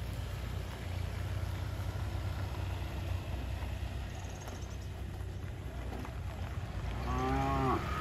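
A steady low rumble, with one of the cattle giving a single short moo, rising then falling in pitch, near the end.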